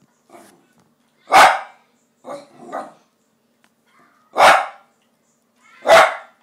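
Small terrier barking to beg for food: three loud, sharp single barks a second or more apart, the first about a second and a half in, with a few fainter sounds between them.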